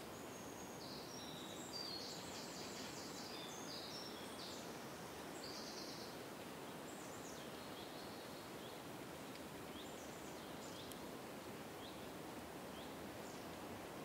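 Wind blowing steadily through forest trees. Birds chirp high above it, busily for the first few seconds, with scattered single chirps later.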